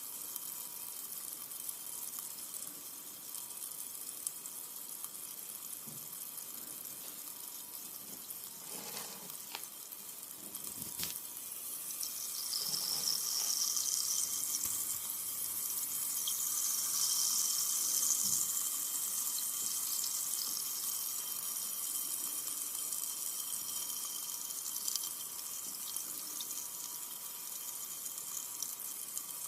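Carbonated soda fizzing: a steady high hiss of bursting bubbles that swells louder about halfway through, then eases back.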